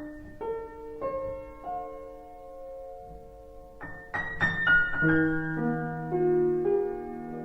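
Slow, gentle solo piano background music. Single notes ring out one at a time, then about four seconds in a louder run of notes gives way to held chords.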